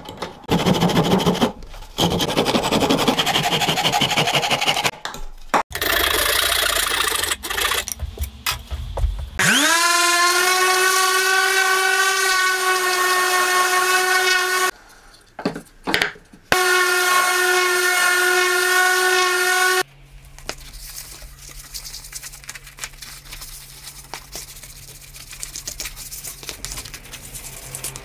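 Workshop power tools: first several loud bursts of rushing cutting noise, then an electric router's motor spinning up quickly to a high steady whine. It runs for about five seconds, stops, and runs again for about three seconds, after which only a low hum remains.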